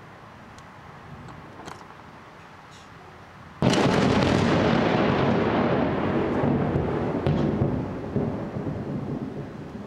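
Thunderclap from a lightning strike: a sudden loud crack about three and a half seconds in, followed by a long rumble that slowly fades.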